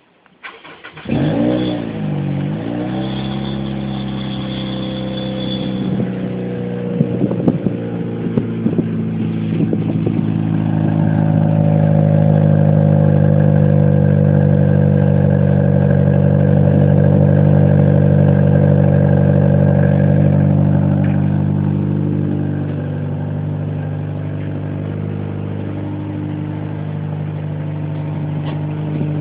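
Toyota Sienta engine starting about a second in, then idling steadily through its exhaust, with a rattle of short knocks from a stone lodged inside the muffler, a rattle that can be mistaken for a dry clutch. The running gets a little louder in the middle and then settles back.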